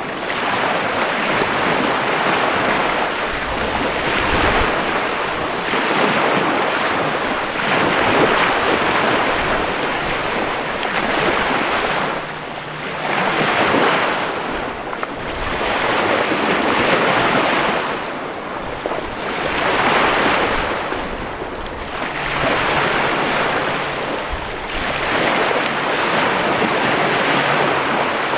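Small waves breaking and washing up a sandy beach on the Chesapeake Bay: a continuous hiss of surf that swells and eases every few seconds as each wave breaks and runs up the sand.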